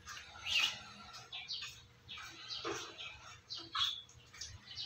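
Kittens mewing: many short, high-pitched mews and squeaks, one after another.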